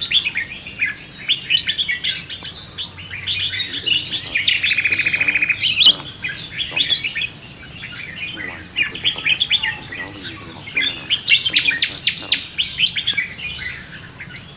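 Several birds chirping and calling at once in a morning chorus, with a fast, even trill about a third of the way in and a burst of sharp high chirps past the middle.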